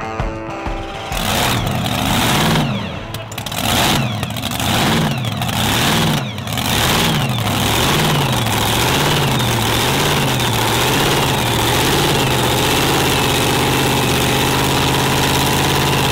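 Supercharged 540-cubic-inch big-block Chevy V8 on methanol in a Ford Ranger burnout truck, running loud and lumpy: its revs swing up and down about once a second, the swings dying away until it settles into a steady idle. Music fades out as the engine comes in about a second in.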